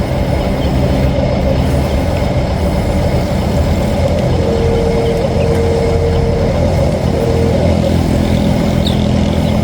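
Radio-controlled scale construction model running, a steady motor sound with a low rumble and a thin whine that comes in briefly several times in the middle.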